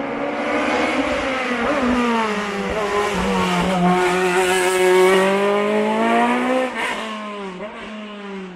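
A racing car's engine accelerating hard up the hill, its note climbing in pitch and growing louder through the gears. About seven seconds in, the note drops sharply.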